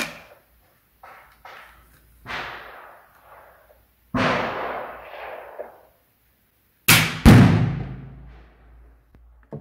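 Shots from an Artemis Black Hawk .177 spring-piston air rifle, with a loud bang about seven seconds in as a pyrotarget, an exploding reactive target, is hit and goes off in a cloud of smoke.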